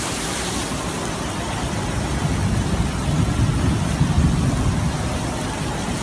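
Steady rushing noise of flash floodwater streaming down a flooded street, with a deeper rumble swelling around the middle.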